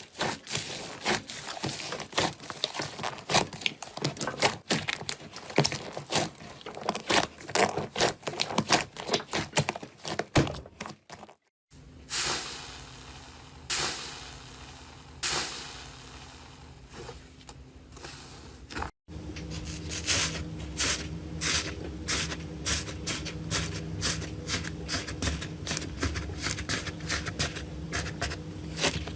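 Slime being squeezed, poked and pressed by hand, full of quick crackling clicks and pops. The sound comes in three separate clips, broken by brief silent cuts about a third of the way in and again about two thirds in. The middle clip has slower, wetter squishes over a faint steady hum.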